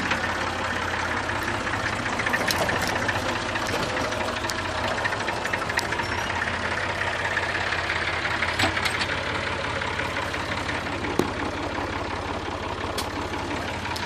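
IMT 539 tractor's three-cylinder diesel engine running steadily, with a few sharp clicks and rattles, the loudest about 11 seconds in.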